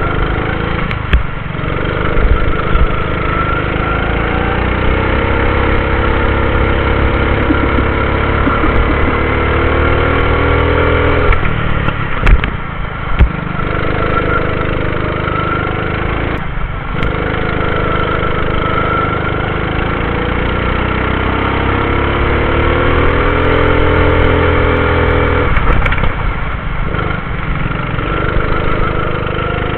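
Go-kart engine at full throttle, heard from the driver's seat: its pitch climbs slowly along each straight and drops sharply as the throttle is lifted for the corners, several times over.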